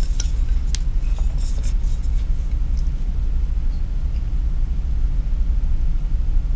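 Steady low background rumble, with a few faint clicks in the first two seconds.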